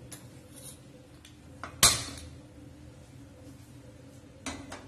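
Lighting a gas stove burner and handling a steel kadhai: one sharp metallic clank with a short ring about two seconds in, and a few fainter clicks near the end.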